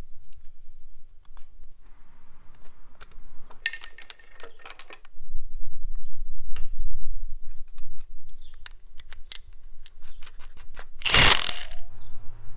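Scattered small metal clicks and handling noises as a dirt bike's front sprocket is fitted onto the countershaft, with a low rumble in the middle. Near the end, a short loud rustle of a paper sheet being handled.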